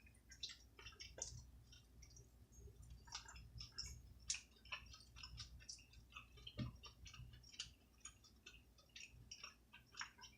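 Faint, close-miked chewing of seafood: a quick, irregular run of small wet mouth clicks and smacks.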